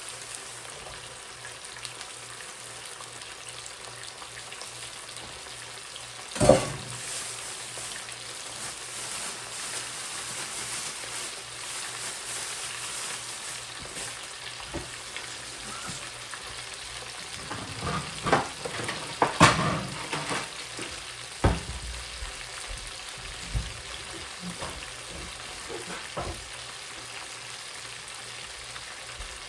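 Thin breaded chicken cutlets shallow-frying in oil, a steady sizzle. A few sharp knocks against the pan break through it, one about six seconds in and a cluster around eighteen to twenty-two seconds in.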